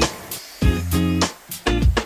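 Background music led by guitar, with chords that come and go on a regular pulse.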